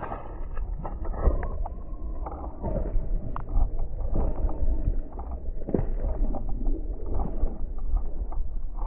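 Powerslide Imperial SUV off-road inline skates rolling over a muddy trail on their tyres: a steady low rumble broken by irregular knocks and clicks.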